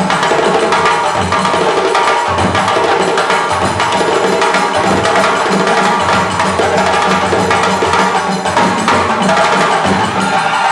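West African drum ensemble playing: several djembes over dunun bass drums in a fast, continuous interlocking rhythm.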